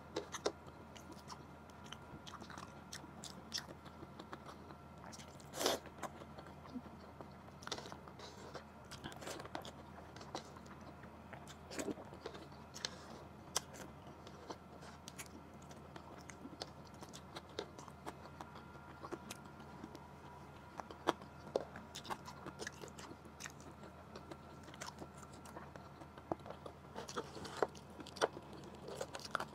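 Close-miked eating of boiled blue crab: chewing, with small sharp clicks and crunches of shell as the meat is picked apart by hand, one louder click about six seconds in. A faint steady hum lies underneath.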